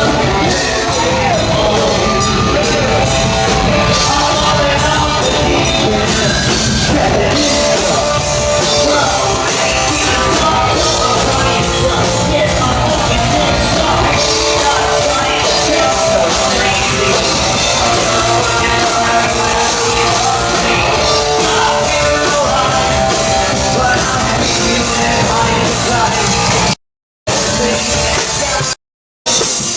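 Loud live punk rock band playing, with shouted vocals. The sound cuts out completely twice near the end, each time for a split second.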